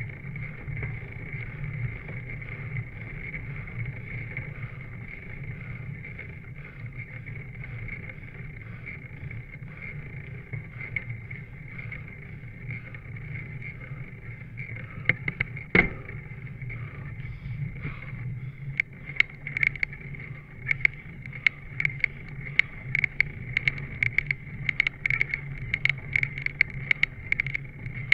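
Road bicycle rolling over rough, gravelly asphalt: a steady hum of tyres and road noise, joined about halfway through by a single sharp knock and then by frequent irregular sharp clicks and rattles, several a second.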